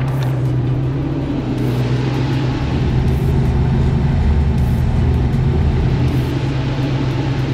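Rally car's engine running steadily with a constant low hum, heard from inside the cockpit.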